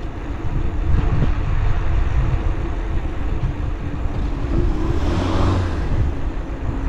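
Wind buffeting the microphone on a fast downhill bicycle ride: a steady low rumble, with a louder, brighter swell of rushing noise about five seconds in.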